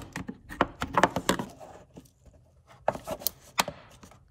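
Hand tools clicking and clacking against the plastic fan shroud and its clips as they are pried apart: a string of sharp, short knocks, a cluster about a second in and another near three seconds.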